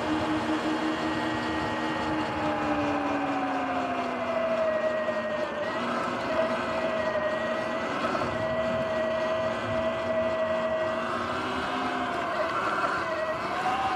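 Sur-Ron electric dirt bike's motor and drivetrain whining under way, the whine falling in pitch a few seconds in as the bike slows and then holding steady, over tyre and wind noise.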